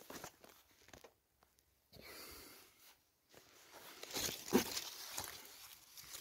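Leaves and twigs of potted currant bushes rustling and crackling as they brush against the camera, with irregular crackles that are loudest about four to five seconds in.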